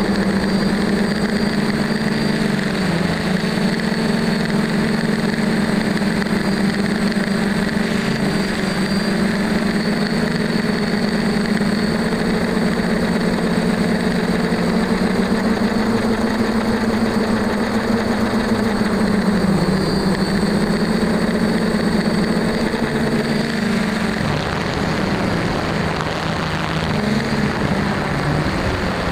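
DJI F550 hexacopter's six brushless motors and propellers humming steadily, recorded by the camera on board. The pitch shifts slightly up and down as the throttle changes, and wavers more in the last few seconds.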